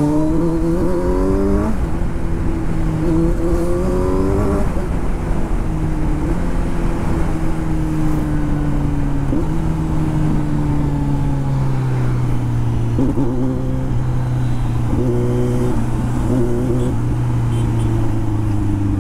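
Kawasaki Z900 inline-four engine heard from the saddle: two quick rising revs through the gears in the first five seconds, each ending in a sudden drop at the shift, then a long steady pull that slowly falls in pitch as the throttle eases, and a few short throttle blips near the end. Wind rushes over the microphone throughout.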